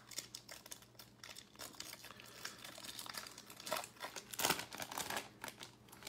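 Foil wrapper of a Topps baseball card pack crinkling and tearing as it is pulled open by hand, in irregular crackles with the loudest about four and a half seconds in.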